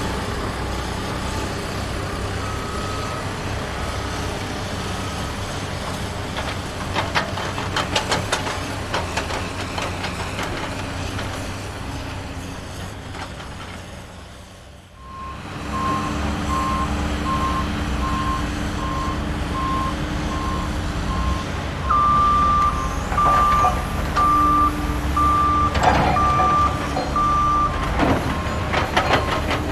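Toy trucks sounding electronic reversing beeps: a steady beep-beep sequence, then from about halfway two sequences at slightly different pitches overlapping. A steady low rumble runs underneath, with a few bursts of clicks and knocks.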